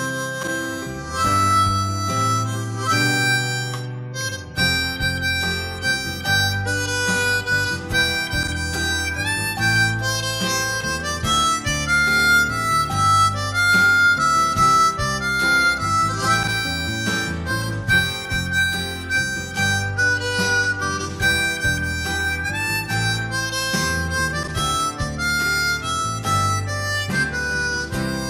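Easttop PR020 ten-hole diatonic blues harmonica playing a melody of quick changing notes, over an accompaniment with low bass notes.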